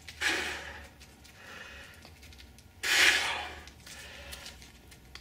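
A man's forceful breaths as he strains to bend a fork by hand: a sharp exhalation just after the start and a louder one about three seconds in.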